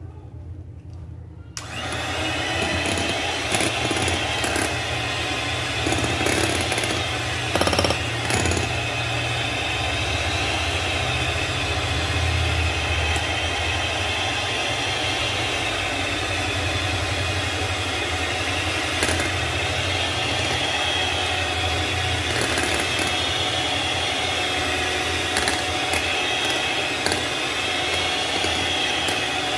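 Electric hand mixer switched on about a second and a half in, then running steadily as its beaters whip a thick cream and condensed-milk mixture in a glass bowl, with a steady whine and occasional light clicks of the beaters against the bowl.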